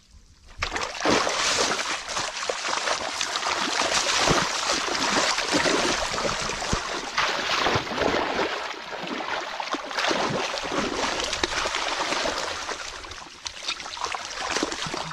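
Shallow muddy water splashing and churning heavily as a person lunges and thrashes through it on hands and knees, grabbing at fish. It starts suddenly about half a second in and continues as a dense run of splashes, easing a little near the end.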